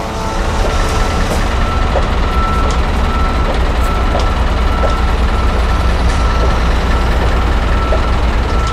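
Pedestrian crossing beeper bleeping steadily at a little under two beeps a second, signalling that pedestrians may cross, over the low steady rumble of traffic idling at the red light.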